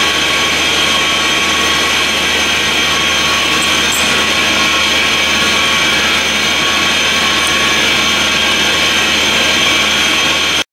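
Steady loud machinery drone with several steady whining tones, from running industrial air compressors.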